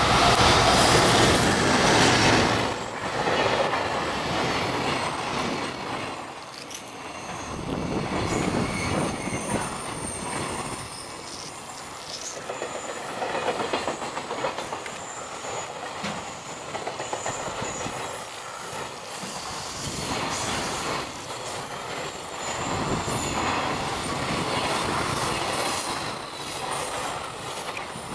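Container freight train hauled by a JR Freight EF210 electric locomotive rolling past: steady rumble and clatter of the wagons' wheels on the rails, with thin high wheel squeal at times. Loudest as the locomotive passes at the start, gradually quieter over the last several seconds as the wagons go by.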